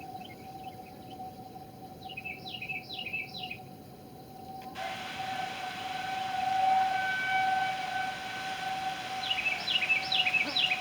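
Outdoor warning siren sounding a steady tone for a straight-line wind warning, swelling and fading in loudness. A bird twice gives a quick run of three falling chirps over it.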